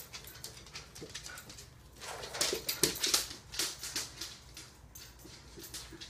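Poodle whimpering and whining in short repeated cries, mixed with quick scratchy clicks, loudest two to three seconds in.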